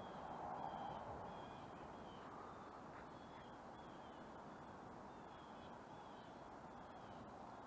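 Faint open-air background noise with a faint, short high chirp repeating about twice a second, which stops near the end.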